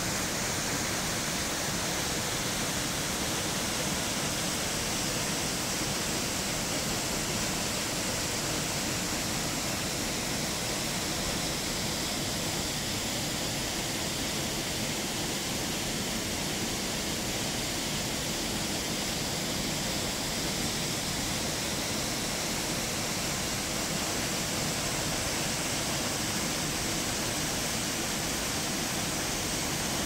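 Waterfall plunging into a deep pool: a steady, unbroken rush of falling water.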